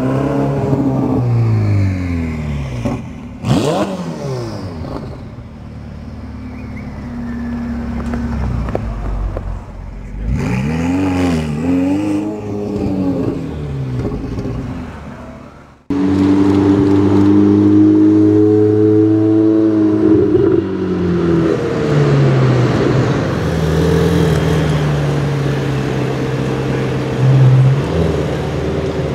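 Ferrari 488 GTB's 3.9-litre twin-turbo V8 exhaust: pulling away with its pitch falling through the gears, a brief sharp sound a few seconds in, then two revs rising and falling in the middle. After a sudden cut it runs at a steadier, lower note that eases down slowly, with a short rise in revs near the end.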